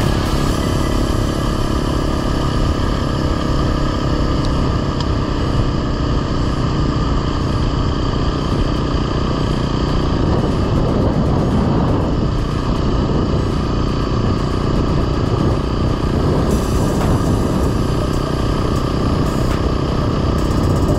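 Honda CRF dual-sport motorcycle ridden at a steady pace, its single-cylinder engine running loud and even.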